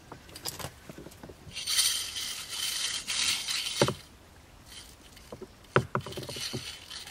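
WD-40 aerosol can spraying in a steady hiss of about two seconds, saturating the bait on a fishing line. The hiss ends in a sharp knock, followed a couple of seconds later by a few lighter knocks against the boat.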